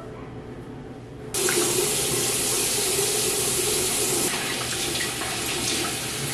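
Bathroom sink tap turned on about a second in and left running, water splashing as hands scoop it over a face to rinse off cleanser; a little quieter in the last two seconds.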